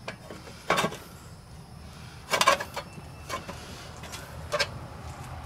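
Hand work on an old Briggs & Stratton small engine: a handful of short clicks and scrapes of metal parts being handled, the loudest a quick cluster about halfway through, over a low steady background rumble.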